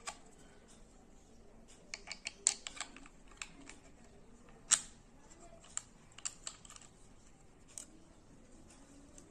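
Faint, irregular plastic clicks and taps as a plastic fitting is screwed onto the threaded back of a CP Plus Wi-Fi security camera: a quick run of clicks about two seconds in, one sharp click near the middle, then a few scattered ones.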